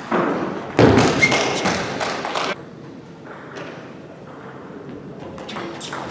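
A loud rush of broad noise about a second in, lasting under two seconds, then the low hum of a large hall; near the end, sharp clicks of a celluloid table tennis ball striking bats and table as a rally begins.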